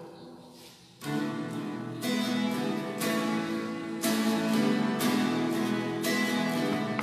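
Guitar strumming chords, about one strum a second, starting about a second in: the instrumental introduction to the communion hymn.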